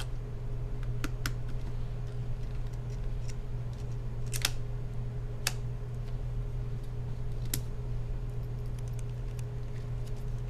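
A handful of sharp, scattered clicks and taps from small laptop parts being handled during disassembly, over a steady low electrical hum.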